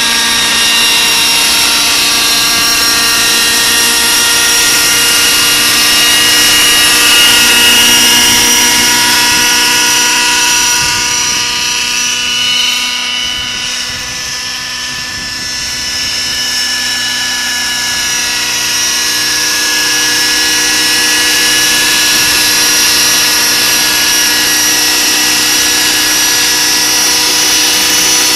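Scale Schweizer 300 radio-controlled model helicopter in flight: a steady, high-pitched whine of motor and rotor. It fades somewhat about halfway through as the model flies off into the distance, then grows louder again as it comes back to hover close by.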